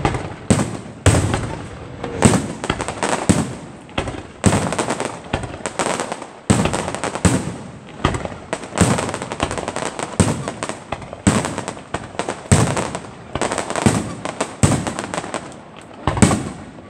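Aerial fireworks shells bursting overhead in a rapid string of sharp bangs, one or two a second, each trailing off in an echo.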